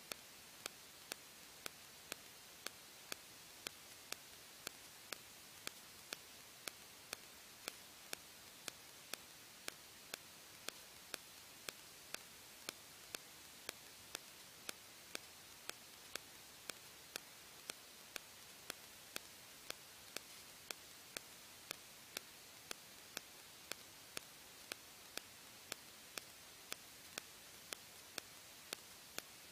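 Faint steady hiss with a sharp, evenly spaced click about twice a second.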